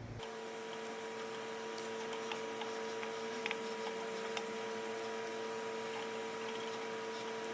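Steady hum of an electric fan with a faint hiss, and scattered small crackles from chicken franks on a hot grill.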